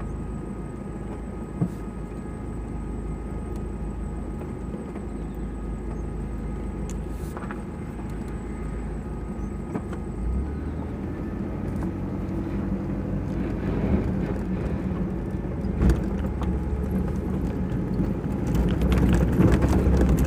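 Car driving over a rough off-road track: steady engine and rolling noise with a few sharp knocks, getting louder near the end.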